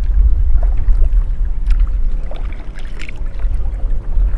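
Kayak paddle strokes: water splashing and dripping from the paddle blades as they dip and lift, over a loud low rumble.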